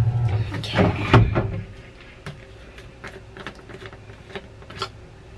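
Washing machine detergent drawer and detergent container being handled: a clatter of plastic knocks in the first second and a half, then a series of small separate clicks and taps. A low hum runs underneath at the start and stops about a second and a half in.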